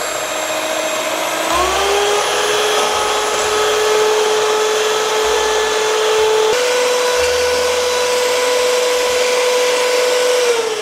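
Electric hand mixer beating eggs in a glass bowl, its motor whining steadily. The pitch rises about a second and a half in as the speed is turned up, jumps higher about midway, and falls as the mixer winds down at the end, the eggs now foamy.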